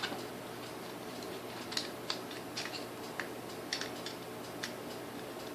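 Faint, scattered light clicks of small metal parts and tools being handled while a mixer is taken apart by hand, about eight over a few seconds, over a steady low hum.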